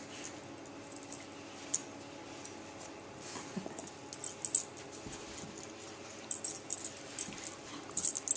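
A German Shepherd and an Akita puppy play-wrestling: soft dog sounds, with a short falling whine about three and a half seconds in. Over them runs light jingling and clicking of collar and leash hardware, which gets busier in the second half.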